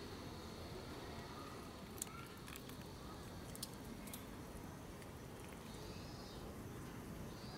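Faint, scattered ticks and soft pattering from a crowd of Humboldt penguins shuffling on concrete, over a low steady rumble.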